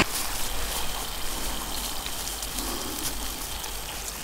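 Breaded trout pieces frying in hot oil in a small camp-stove pot: a steady sizzle full of small crackles and pops.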